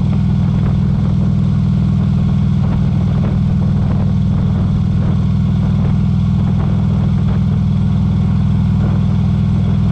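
2016 Harley-Davidson Tri Glide's Twin Cam 103 V-twin engine running steadily at about 2,400 rpm while the trike cruises at about 32 mph, a loud, even low drone.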